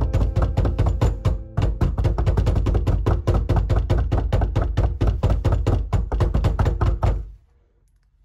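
Soundtrack music with a fast, pounding beat of rapid, even strikes, which cuts off abruptly about seven seconds in.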